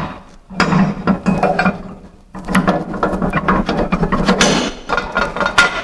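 Steel lift arm of a two-post car lift being worked into its carriage while the arm pin is fed through the holes, with metal-on-metal rattling and scraping. It comes in two stretches with a short break about two seconds in.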